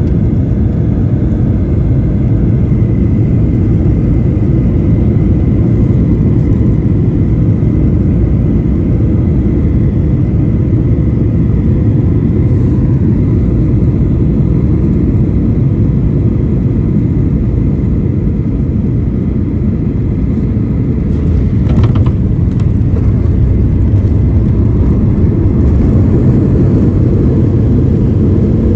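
Cabin noise inside a Boeing 737-800 during landing: the steady low rumble of its CFM56 engines and rushing air, with faint steady whines. About 22 seconds in there is a cluster of knocks, after which the rumble grows a little louder.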